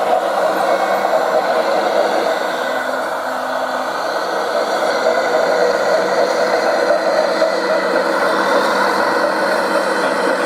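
Radio-controlled model truck running, a steady whir of its electric drive motor and gearbox.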